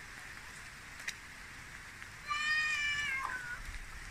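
A single drawn-out, meow-like animal call, about a second long, starting about two seconds in; it holds its pitch and then drops away at the end.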